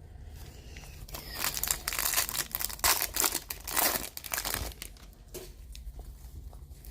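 Foil trading-card pack wrapper being torn open and crinkled, with a dense burst of crackling in the middle that dies down to lighter rustling.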